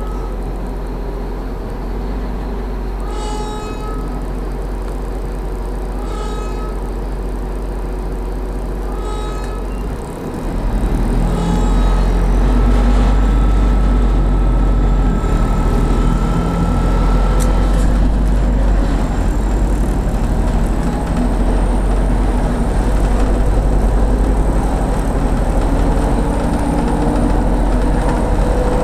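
Cabin of a diesel city bus: the engine runs at idle with short electronic beeps about every three seconds. Then, about ten seconds in, it pulls away and grows louder, with a slowly rising engine whine near the end as it gathers speed.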